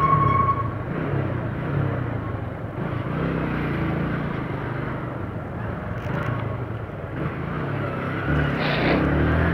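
Motorcycle engine running at low speed in city traffic, with wind and traffic noise around it; it grows louder near the end. A short high beep sounds right at the start.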